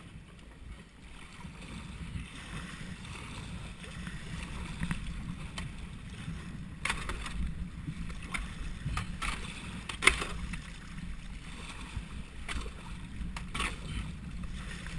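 Kayak paddle strokes splashing and seawater sloshing against close rock walls as a sea kayak moves through a narrow rocky channel, over a low rumble. A few sharp knocks break through, the loudest about ten seconds in.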